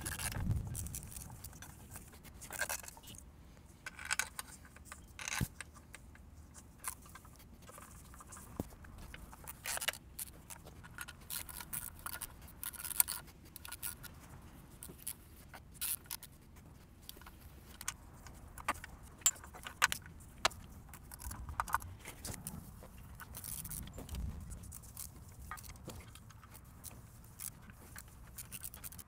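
Metal clinking and irregular sharp clicks of bolts and a ratchet with an extension as an oil pan's bolts are run in and tightened.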